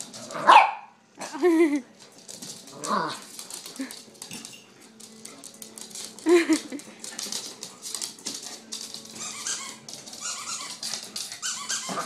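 A chihuahua puppy gives a few short barks and yaps while playing with a toy ball on a hardwood floor, the loudest about half a second in. Between the barks comes a rapid run of small clicks and taps, from claws and the toy on the wood, busier near the end.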